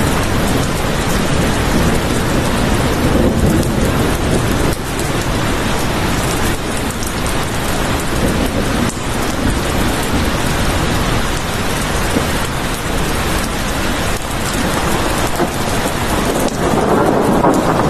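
Heavy rain falling steadily with a low rumble of thunder underneath, swelling louder near the end.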